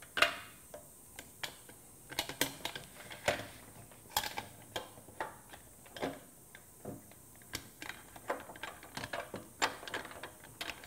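Extruded aluminium crosscut fence being set onto and fitted to a Felder X-roll sliding table: scattered light clicks and knocks of metal parts meeting, irregular and spread throughout.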